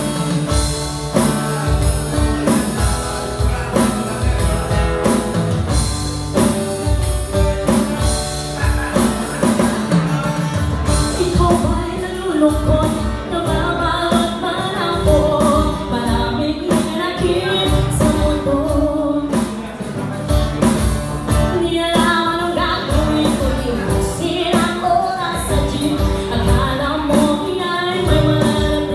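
Live acoustic band: strummed acoustic guitar with light percussion playing an intro. A woman starts singing into a microphone about eight or nine seconds in.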